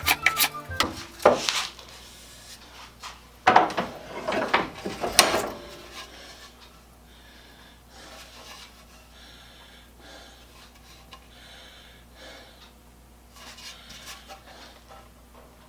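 Hand plane shaving a wooden board: several loud scraping strokes in the first six seconds, then quieter rubbing and handling of the wood.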